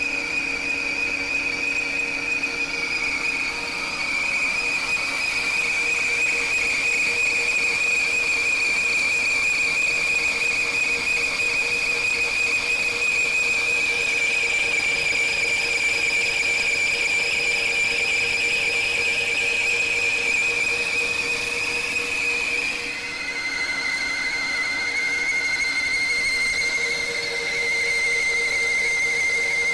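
American Pacemaker engine lathe taking a facing cut on the end of a large steel shaft. The cut gives a steady high-pitched squeal over the machine's lower steady hum, and the squeal drops a little in pitch about three-quarters of the way through.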